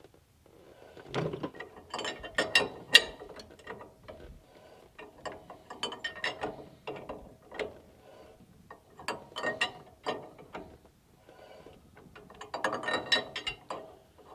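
Hand socket ratchet clicking in four bursts of rapid clicks with short pauses between, as it turns the tight sector shaft extension onto the steering box's sector shaft.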